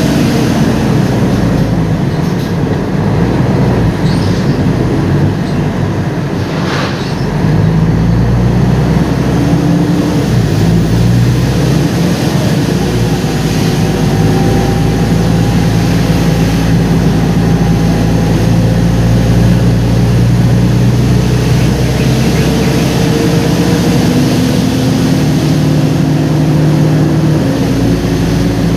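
Mercedes-Benz O-500UA articulated bus with a ZF gearbox, its diesel engine running steadily under way, with whining tones that slowly rise in pitch as the bus pulls. The sound gets louder about seven seconds in.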